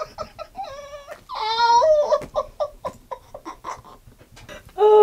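People laughing, with drawn-out whining vocal sounds: a loud wavering one about a second and a half in, and one that falls steeply in pitch near the end.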